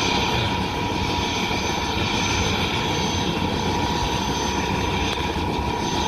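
Helicopter running steadily: dense rotor and engine noise with a steady high whine over it.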